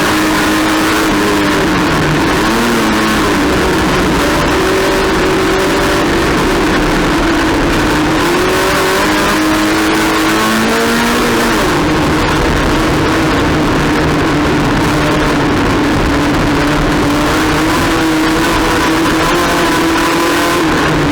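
Race car engine running hard, its pitch rising and falling with throttle and gear changes, over a constant rush of noise.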